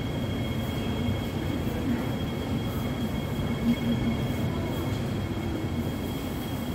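MTR metro train running: a steady low rumble with two constant high-pitched tones over it.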